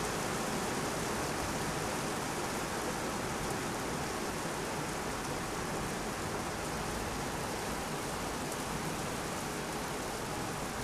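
Steady rain falling during a severe thunderstorm, an even, unbroken hiss with no thunder heard.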